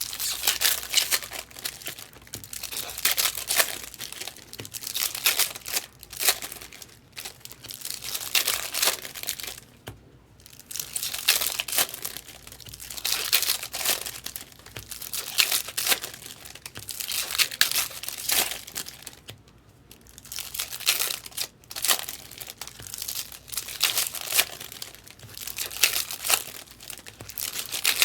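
Trading-card pack wrappers being torn open and crinkled, in repeated rustling, tearing bursts every couple of seconds with short lulls in between.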